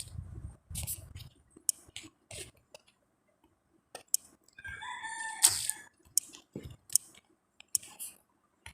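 Scattered light taps and clicks of a smartphone being handled and its screen tapped. About four and a half seconds in, a drawn-out pitched call lasting about a second sounds in the background.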